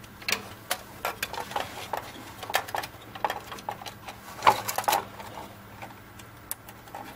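Plastic cable tie being threaded and pulled tight to hold up a jukebox CD mechanism's flap, with irregular small clicks and a louder ratcheting cluster about four and a half seconds in.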